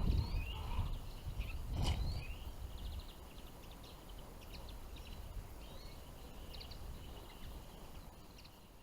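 Small finches twittering, short high chirps scattered throughout, over a low wind rumble in the first two seconds.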